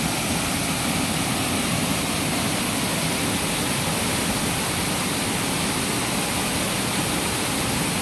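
Waterfall cascading over boulders into a pool: a steady, even rush of falling water.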